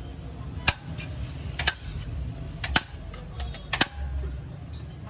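Several sharp clinks, some in quick pairs, as a plate knocks and scrapes against the rim of a large metal biryani pot while rice is scooped out. A steady low hum runs underneath.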